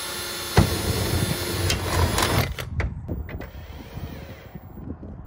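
Cordless drill running steadily, boring a hole through an aluminum angle rail, with a sharp knock about half a second in and a rougher cutting sound before the motor stops about two and a half seconds in. Lighter clicks of tool handling follow.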